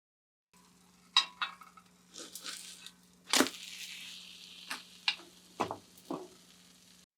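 Kitchen food-preparation sounds: a handful of sharp clicks and crisp cracking crunches, with a short hiss about three and a half seconds in, over a faint steady hum.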